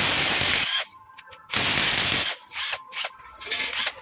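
Cordless electric ratchet spinning the cylinder-head nuts off a Bajaj Platina 100cc engine. It runs in two bursts of about a second each, then in a couple of short blips.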